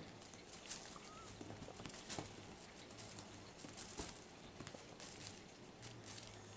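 Soft, irregular taps and rustles of a six-week-old Bengal kitten's paws pouncing and scrambling on a textured bedspread while it bats at a feather wand toy.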